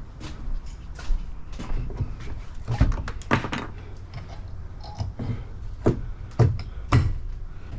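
Irregular knocks and thuds from demolition work, wood and building material being struck and pulled apart, about nine sharp hits at uneven spacing, the loudest in the middle and near the end.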